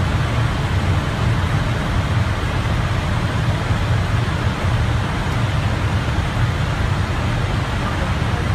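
Steady cockpit noise of a jet airliner in cruise: a constant rush of air with a deep low hum underneath, unchanging throughout.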